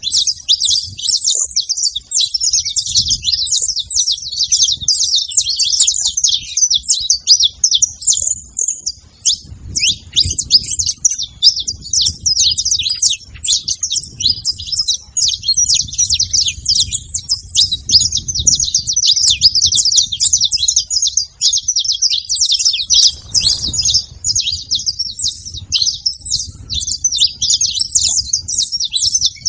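A flock of saffron finches chirping and trilling together, many birds overlapping in a continuous, busy chatter.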